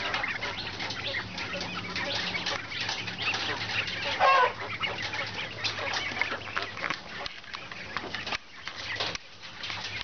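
Caged young quail: a busy patter of small clicks and scratches as the birds move and peck on the wire, with one short call about four seconds in.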